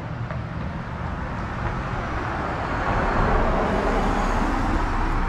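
Street traffic noise: a car's engine and tyres on the road, growing louder from about halfway through.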